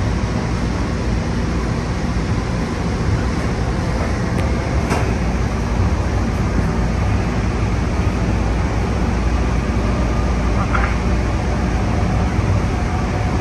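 Light rail train heard from inside the car while running along the track: a steady rumble of wheels on rails and running gear. A single short click about five seconds in.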